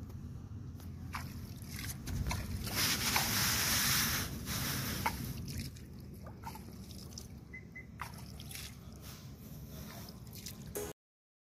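A hand splashing and scooping water at the edge of a concrete bank, with trickling, dripping water and small sharp splashes. It is loudest about two to four seconds in, and the sound cuts off abruptly near the end.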